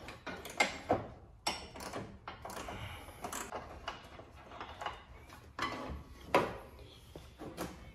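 Hands working loose metal parts and fittings down inside a lawn tractor's battery compartment: about a dozen irregular clicks, clinks and light knocks.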